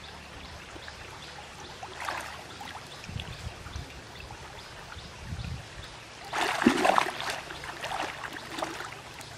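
River water splashing and sloshing around a person wading waist-deep, with a small splash about two seconds in and a louder burst of splashing around two-thirds of the way through.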